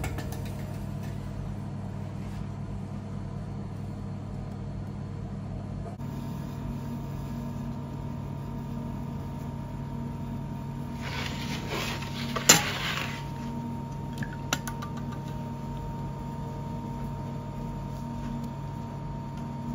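Steady low hum of bakery machinery. About two-thirds of the way in comes a short rustle and one sharp knock, with a couple of faint clicks soon after.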